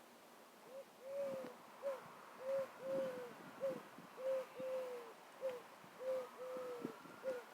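A bird, which the uploader takes for a quail, giving low hooting calls. Each phrase is a short note, a medium note and a long note, each drooping at its end, and the phrase repeats about every two seconds.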